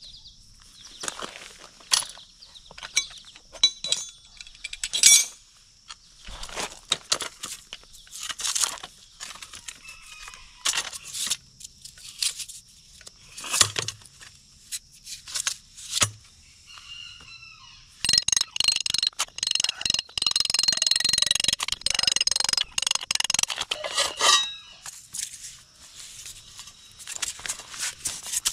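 Clinks, knocks and scrapes of a concrete core being worked loose from a diamond core bit. About two-thirds through comes a dense stretch of rapid rattling and scraping that lasts several seconds.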